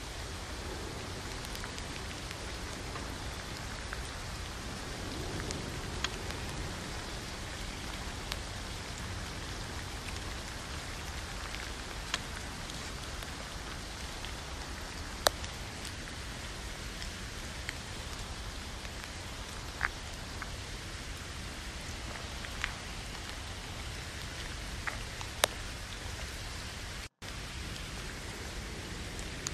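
Steady rain on a tent, with scattered sharp ticks of single drops. The sound cuts out for an instant near the end.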